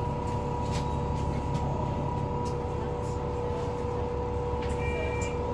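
Interior of a Volvo B9TL double-decker bus with its diesel engine running steadily under a constant high-pitched whine, plus a few light rattles. Near the end an electronic beep sounds once, the start of a beep that keeps repeating.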